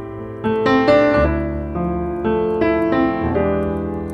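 Background piano music: notes and chords struck one after another, each left to ring and fade.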